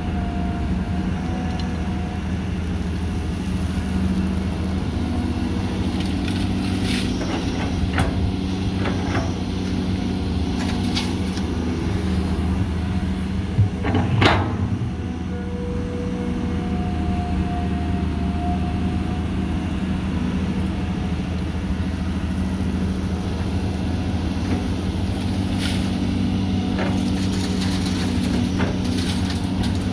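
Caterpillar hydraulic excavator's diesel engine running steadily while it digs dirt and loads a dump truck. Scattered clanks and knocks come from the bucket and its linkage, the loudest about halfway through.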